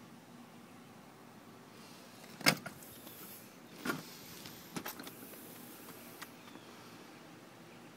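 A few sharp knocks against a faint background hiss: one loud knock about two and a half seconds in, then softer knocks and clicks over the next few seconds.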